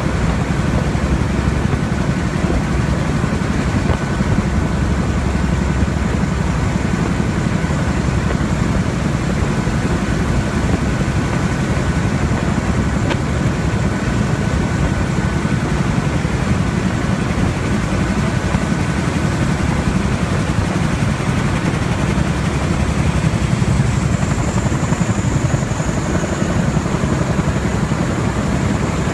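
Steady, loud in-flight drone of an MC-130J Commando II's four turboprop engines and the rushing air, heard from aboard the tanker, with a thin steady whine running through it.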